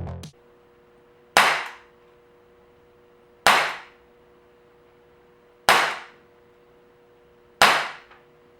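Four single shots from an ASG CZ 75 P-07 Duty CO2 BB air pistol, about two seconds apart, each a sharp crack that dies away within half a second.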